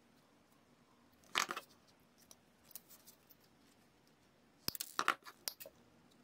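Needle-nose pliers and thin wire handled by nitrile-gloved hands. There is a short scraping rustle about a second and a half in. Near the end comes a quick cluster of sharp clicks and taps as the pliers go down on the table.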